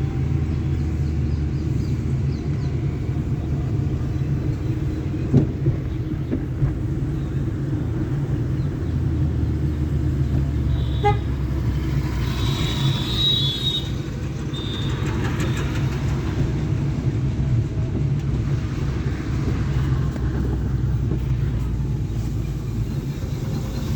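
Steady engine and road drone inside a moving car, with short high-pitched horn toots from the traffic around the middle.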